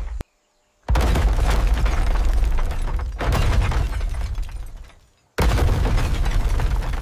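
Three heavy rumbling crashes, booms of breaking metal and rock debris. Each starts suddenly and dies away, with short silences between.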